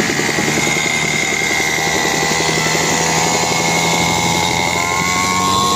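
49cc petrol mini dirt bike's small engine buzzing steadily as it is ridden along at speed, rising a little in pitch near the end.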